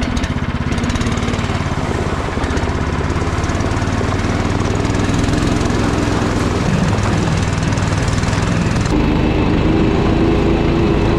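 Snowdog motorized snow sled's small engine running steadily under way, with a quick, even firing beat. The engine note shifts about nine seconds in.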